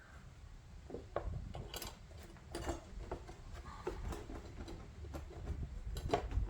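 Hard plastic engine cover being handled and set down onto the engine, giving a string of irregular light clicks and knocks.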